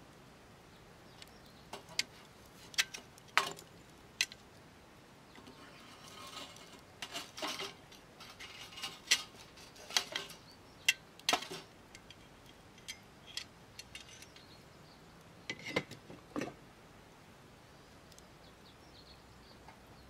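Metal tongs and sticks of firewood clinking and knocking against a small titanium wood-burning stove as wood is pushed into its firebox: scattered sharp clicks in small clusters, a few of them louder, with quiet gaps between.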